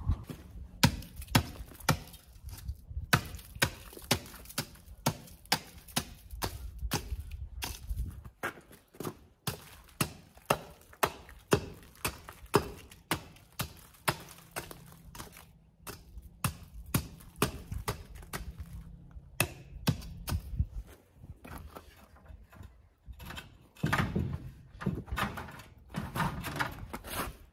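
A short-handled hatchet chopping at ice on frozen ground: sharp blows about one to two a second, with a brief pause about three-quarters of the way through.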